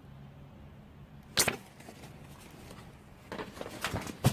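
Metal clutch parts being handled: one sharp clink about a second and a half in, then a run of small clicks and rattles near the end.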